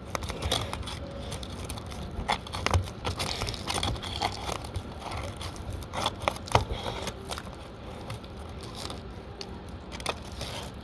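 Roof shingles being pried up and worked loose by hand, with irregular scraping, crackling and a few sharp clicks.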